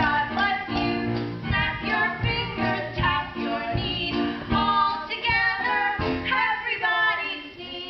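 Singers with instrumental accompaniment performing a musical-theatre number over a steady bouncing beat.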